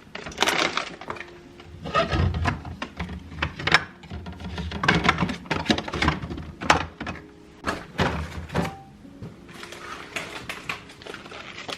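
Grocery items and packaging being handled: an irregular run of knocks, taps and rustles as things are set down and moved about.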